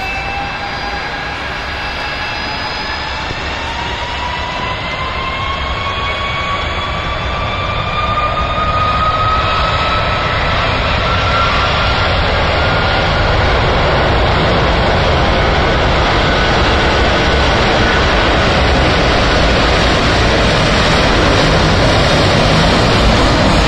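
Turkish Cargo Airbus A330 freighter's twin jet engines spooling up for takeoff: a whine rising in pitch over the first dozen seconds, then the engine noise growing steadily louder as the jet accelerates down the runway.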